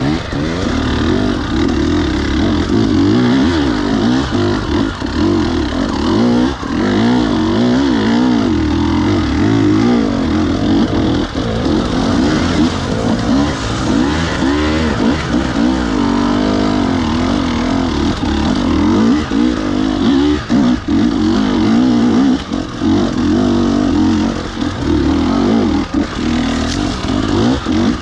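Two-stroke enduro dirt bike engine revving hard and unevenly, the pitch climbing and falling again and again with short throttle chops.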